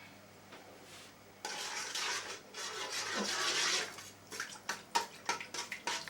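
Flour poured from a bag into a bowl: a steady dry hiss for about two and a half seconds, then a run of short crinkles and taps from the bag.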